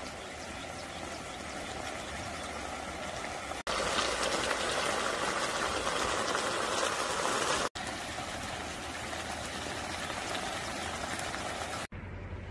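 Red-sauced meat and vegetables simmering and sizzling in a frying pan on a portable gas burner: a steady, crackly bubbling. It is loudest in the middle stretch, and it changes abruptly at a few cuts.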